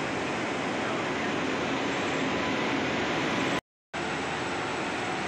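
Steady noise of a stationary WAP7 electric locomotive, its cooling blowers and auxiliaries running as it stands ready. The sound drops out completely for a moment about three and a half seconds in.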